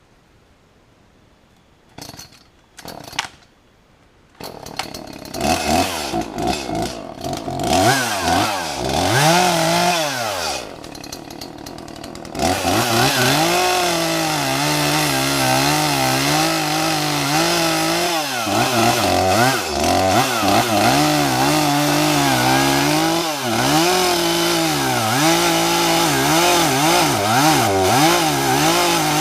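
Chainsaw engine revving up and down in sweeps after a few quiet seconds with two short sounds. A little before halfway through it settles into a steady high-speed run with its pitch wavering, as when the chain is cutting into wood under load.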